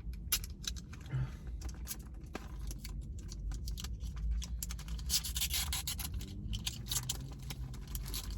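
Food packaging being handled, with paper and wrapper rustling and crinkling in irregular crackles that grow denser about five seconds in.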